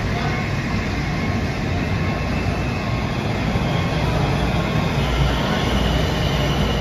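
Washington Metro train pulling into an underground station: a steady rumble of wheels on rail that grows slightly louder as it nears, with a faint high whine joining in the second half.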